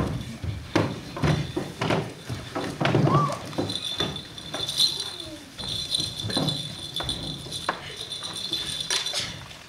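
Irregular wooden knocks and thumps of folding stools and chairs being handled and set down on a stage floor, with footsteps and low voices. A thin, high steady tone comes in about three and a half seconds in and stops near the end.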